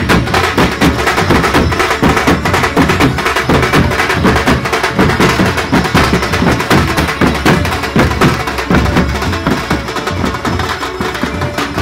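A street drum band plays loud, fast, driving drumming: several double-headed drums beaten with sticks, together with jingled frame drums, in a dense, unbroken rhythm.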